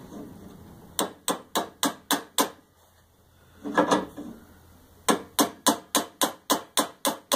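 Small hammer tapping the end of a metal caster-wheel pin on a cast iron Singer treadle sewing machine base, with a heavier hammer held behind the pin as a backing: two quick runs of light metal strikes at about four a second, six and then about nine. The taps are peening a burr onto the pin's end to lock the caster in place. A brief duller sound comes in the pause between the runs.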